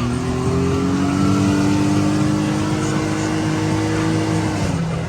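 Can-Am Maverick X3 Max's turbocharged three-cylinder engine pulling under acceleration, its pitch climbing slowly, then dropping as it eases off near the end.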